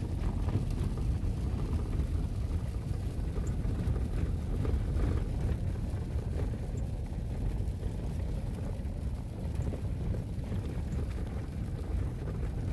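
Steady low rumble of road and engine noise heard from inside a moving vehicle's cabin.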